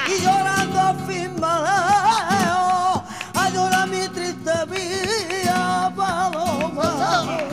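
Flamenco cante: a woman singing long, wavering, drawn-out vocal lines over a flamenco guitar, with handclaps (palmas) marking the rhythm.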